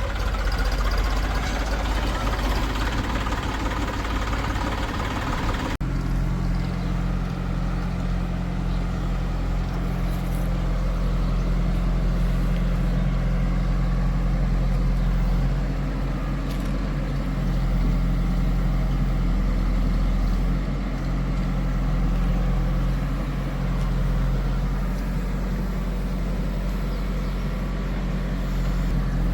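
Diesel engines of a backhoe loader and tractors running steadily. About six seconds in the sound changes abruptly to a steadier, lower hum.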